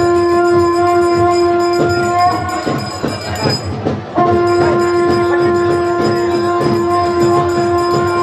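A conch shell (shankh) blown during aarti in long, steady, unwavering blasts. The first blast ends about two seconds in, and after a pause of about two seconds a second one is held to the end. Voices fill the pause.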